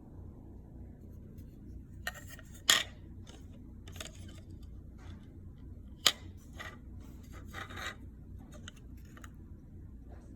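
A run of small clicks, taps and scraping rustles of tools and small parts being handled, with a sharp click a little under 3 seconds in and another about 6 seconds in.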